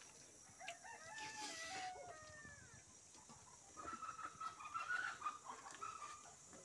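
Chickens: a rooster crowing once, about two seconds long, starting a little under a second in, then a choppy run of clucking a few seconds later.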